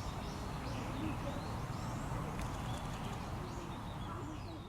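Wild birds calling: a string of short, high chirps, several a second, over a steady low rumble.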